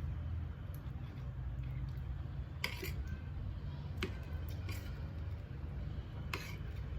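Sounds of eating a meal of rice and curry: a few sharp clicks and clinks from a utensil on a plate and from chewing, spread over a few seconds, over a steady low hum.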